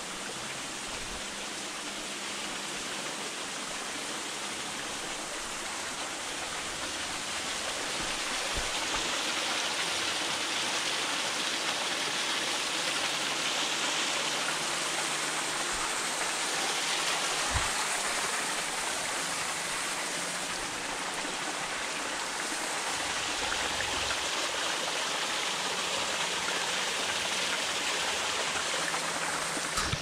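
Small rocky creek splashing and rushing steadily over boulders in little cascades, growing a little louder about a quarter of the way in.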